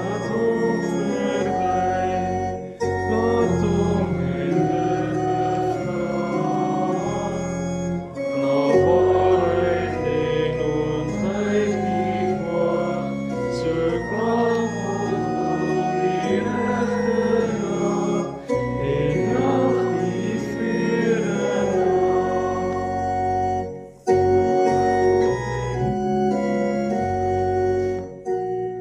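Church organ playing a psalm tune in held chords, with the congregation singing along, ending on a final chord just before the end.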